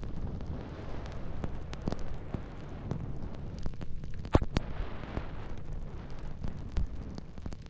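Wind buffeting the microphone in a rumbling gust noise, with the hiss of sliding over snow and scattered knocks, the loudest a sharp knock about four seconds in.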